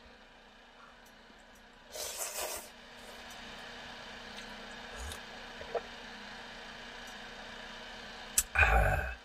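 Pot of noodle soup bubbling on a portable gas stove, a steady hiss, with a short hissing burst about two seconds in. A click and a loud knock come near the end.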